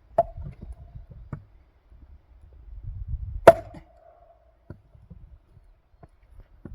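Axe splitting firewood for a wood-fired boiler: two heavy strikes about three seconds apart, the second louder, each followed by a short ringing tone, with a few smaller knocks between.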